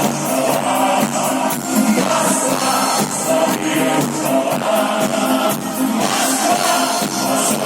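Music with a steady beat and no lyrics: an instrumental passage of a pop song.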